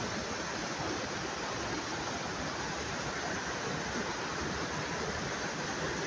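Mountain stream rushing over rocks: a steady, even rush of water.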